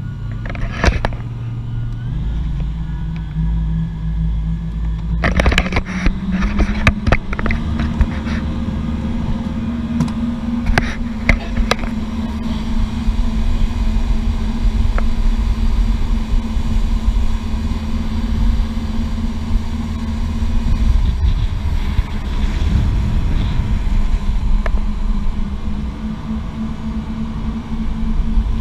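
Motorboat engine running under way, its revs climbing in steps over the first eight seconds and then holding steady, over a rush of wind and water. Sharp knocks come now and then in the first twelve seconds.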